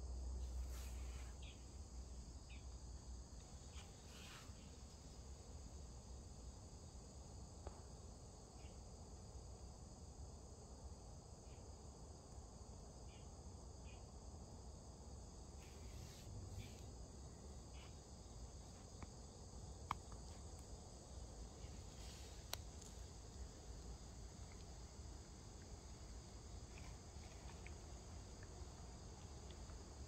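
Faint, steady high-pitched chirring of insects, several tones held without a break. A low rumble sounds in the first second, and a few faint ticks come and go.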